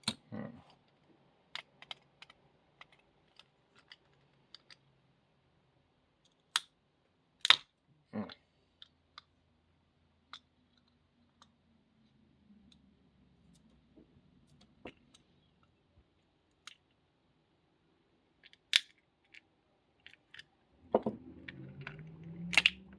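Scattered sharp metallic clicks and taps from handling and working on a brass padlock as it is taken apart, a few louder knocks among them.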